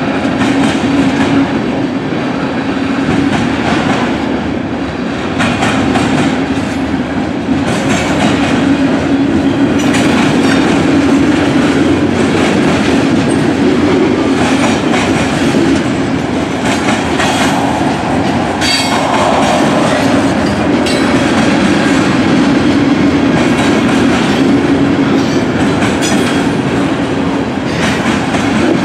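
Freight cars of a long mixed freight train rolling past close by: a steady rumble of steel wheels on the rails with clacking as the wheels pass over rail joints.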